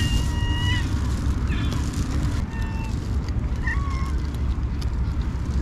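Stray cats meowing for food: a meow held almost a second at the start, then two shorter meows, over a steady low rumble.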